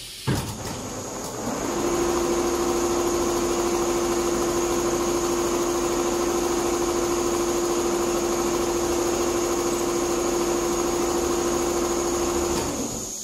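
Richpeace four-head computerized pattern sewing machine stitching leather panels, a rapid even stitching rhythm under a steady motor whine that sets in about two seconds in and stops shortly before the end. A single knock right at the start.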